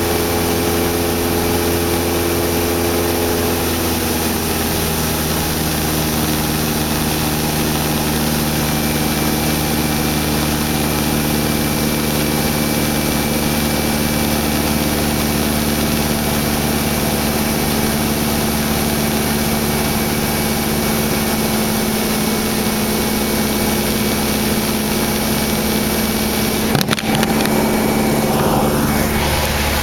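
Cessna 172 Skyhawk's piston engine and propeller droning steadily, heard inside the cabin in flight. The engine note shifts slightly about four seconds in, and there is a single knock near the end.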